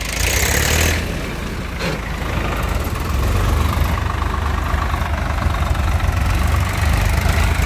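Two Swaraj tractors' three-cylinder diesel engines running steadily at moderate revs as the tractors are turned and driven slowly across a field. A hissy rush comes in the first second.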